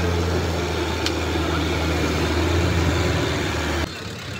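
Diesel engine idling steadily with a deep, even hum; it ends abruptly near the end.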